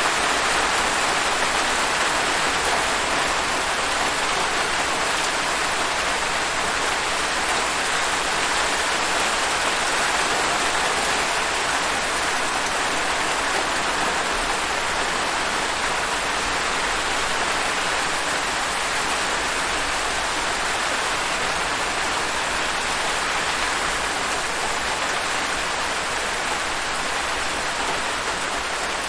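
Steady rain falling on a surface: an even hiss of many drops that holds level throughout.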